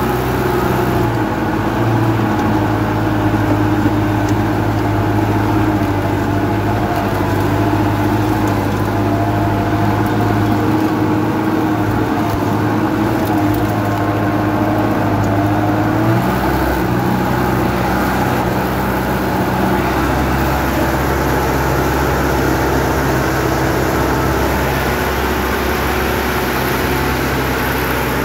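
Sonalika 75 HP tractor's diesel engine running steadily under load while it drives a 4-foot rotavator through the soil. Its note shifts about sixteen seconds in.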